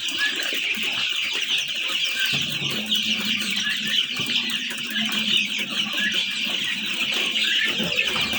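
A crowd of young chicks, about two weeks old, peeping continuously in many overlapping high cheeps. A low steady hum joins about two and a half seconds in and fades near the end.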